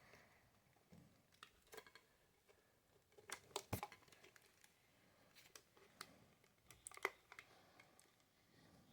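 Faint scattered clicks and light taps of small hard objects being handled, with the sharpest pair about three and a half seconds in and another about seven seconds in.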